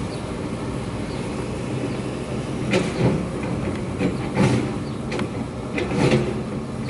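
Diesel engine of heavy demolition machinery running steadily, with several sharp clanks and bangs of debris being handled about three to six seconds in.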